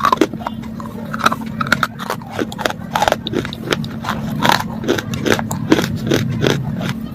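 A person biting and chewing something hard and crunchy close to the microphone: many sharp, irregular crunches in quick succession. A steady low hum runs underneath.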